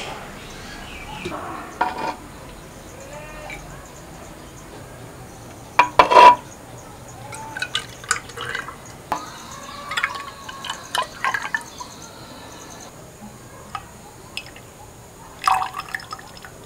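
Red rosella cordial being poured into a glass jar: liquid splashing and dripping into the glass, with small clicks around it. A single sharp knock about six seconds in is the loudest sound.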